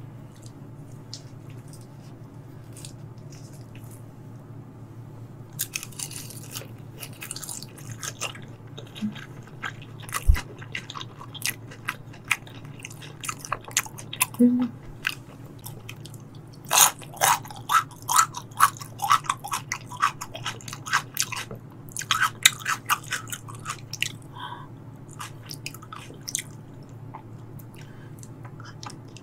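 Close-miked chewing of a mouthful of tuna sashimi wrapped with greens: quiet for the first few seconds, then runs of wet clicks and soft crunches in bursts, over a low steady hum.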